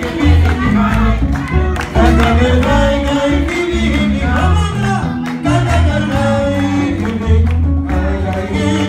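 Live band playing festejo, Afro-Peruvian dance music: a pulsing electric bass line and percussion under a man singing into a microphone.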